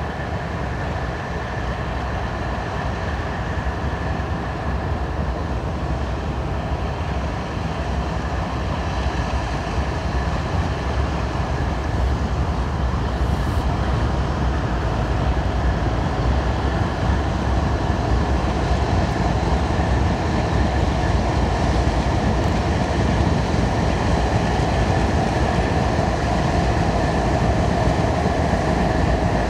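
A train rolling past: a continuous rumble of wheels on rail that grows gradually louder toward the end, with a faint steady high tone over it.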